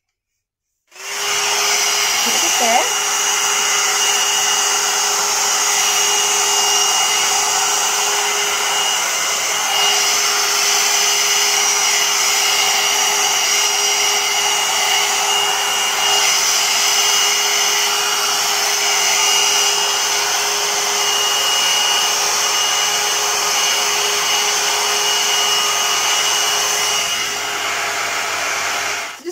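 Blo Brush hot-air dryer brush switching on about a second in and blowing steadily: a loud fan-and-motor rush with a steady hum and a thin high whine, cutting off just before the end.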